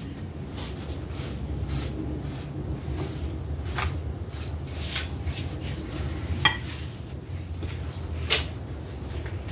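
A few short knocks and clicks of kitchen things being handled, one with a brief ringing clink about six and a half seconds in, over a steady low hum.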